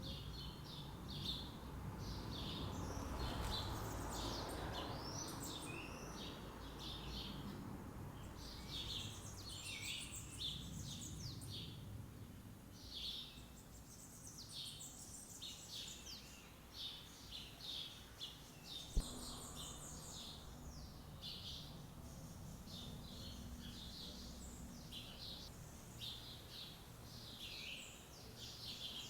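Several birds chirping and calling with quick short notes, over a low background rumble; a single sharp click about two-thirds of the way through.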